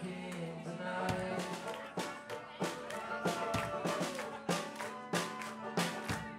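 Live band playing with acoustic guitar. About a second in, a steady percussion beat joins the held notes.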